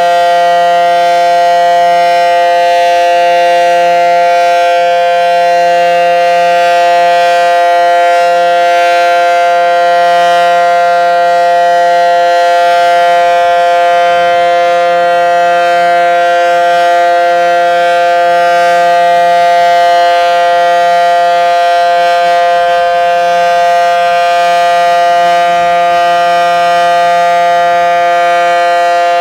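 Federal Sign & Signal SD-10 dual-tone outdoor warning siren sounding the Full Alert signal. It holds one loud, steady two-pitch chord.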